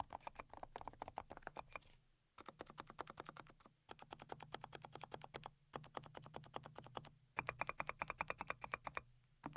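Fast typing on a custom mechanical keyboard with fully hand-lubed switches: quick runs of keystrokes, about eight to ten a second, broken by short pauses.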